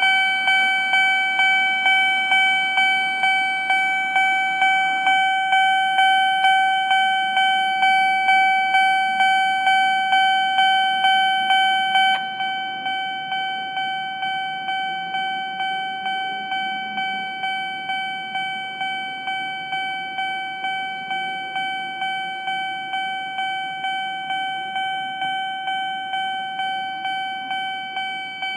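Japanese level-crossing alarm ringing: a repeated electronic clang, about 1.7 strikes a second, over a steady ringing tone. About twelve seconds in it becomes somewhat quieter. The crossing is ringing without a known cause, which the uploader cannot explain.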